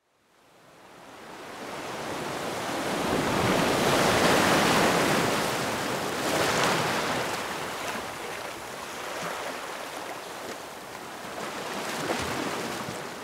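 Large ocean waves breaking, a rushing wash of surf that fades in from silence over the first couple of seconds and swells several times.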